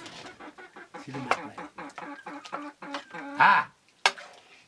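Domestic hens clucking in short, quick calls, with one louder squawk about three and a half seconds in. A metal ladle clinks once against a pot just after.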